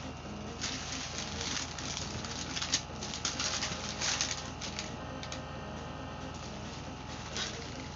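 Packaging being handled during an unboxing: irregular rustling for the first half, then quieter, with a few sharp clicks.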